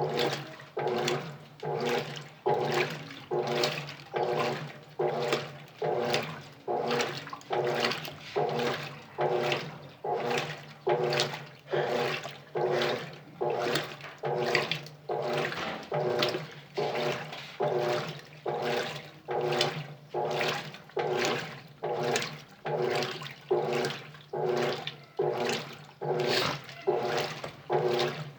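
Colormaq LCA12 top-loading washing machine agitating: water sloshing in the tub in an even rhythm, about one and a half surges a second, over a steady hum.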